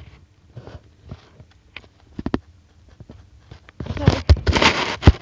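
Handling noise: scattered light clicks and knocks of small plastic toy figures being picked up and set down, then a louder stretch of rustling about four seconds in as the camera is moved, with two sharp knocks, the last one near the end the loudest.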